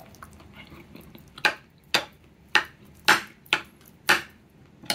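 Metal spoon clinking and scraping against a plate about six times while mixing curry into rice.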